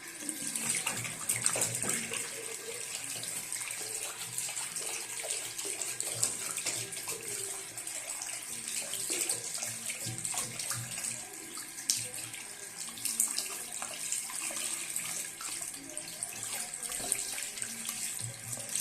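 Water running steadily from a tap into a sink, with irregular splashes as hands are washed under it.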